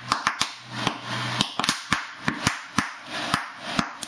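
Sharp, irregular pops, about a dozen, as a torch flame ignites bubbles of HHO (hydrogen-oxygen) gas rising through the water in a metal can, with a steady hiss between the pops.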